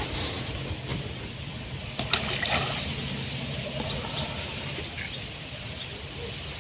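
A ball of groundbait lands in calm water with a single short splash about two seconds in.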